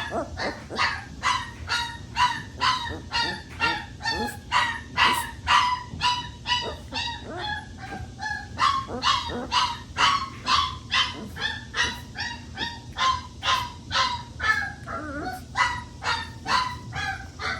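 Three-week-old Boerboel puppy crying in short, high yelps, about two a second without a break, as it struggles against being held and dosed with dewormer.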